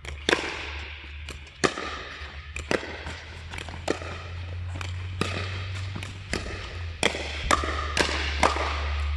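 Pickleball rally: paddles striking a plastic pickleball, sharp pops roughly a second apart that come about twice a second near the end, each echoing in a large indoor court hall. A steady low hum runs underneath.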